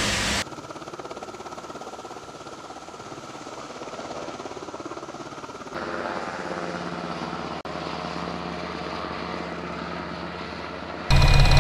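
Aircraft noise from a military H-60 Seahawk helicopter. A steady drone for the first half gives way, about six seconds in, to the helicopter's running rotor and turbine, which carries a steady tone. Near the end a much louder sound cuts in abruptly.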